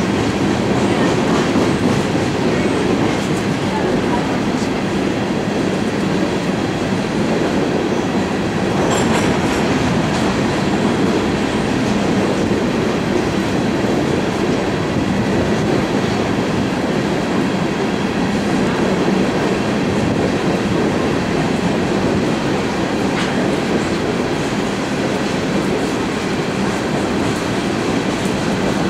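Empty coal train's hopper cars rolling past steadily: a continuous rumble of steel wheels on rail, with a brief high squeal about nine seconds in.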